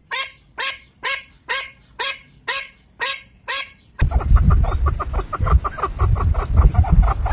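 A bird calling eight times at an even pace, about two calls a second, each call sliding down in pitch. Then, after an abrupt change, a fast run of short calls, about six a second, over a low rumbling noise.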